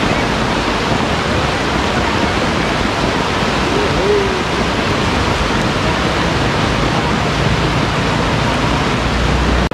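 Floodwater rushing, a loud steady wash of water noise.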